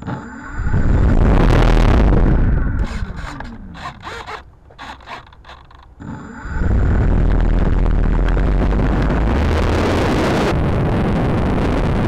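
Motor and propeller of a small RC P-51D Mustang, heard from a camera on the model. The motor runs up briefly to high power, then spins down with a falling whine from about three seconds in. About six seconds in it runs up again and holds steady for the takeoff, with a heavy rumble on the microphone.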